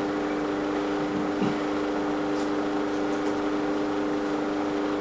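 Steady room hum with a few faint small sounds, such as a slight shuffle about a second and a half in.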